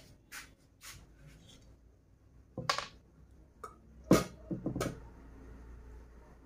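A few faint taps, then several sharp knocks and clinks of a glass bottle and metal kitchenware being handled on a table. The loudest clink, a little over four seconds in, rings briefly.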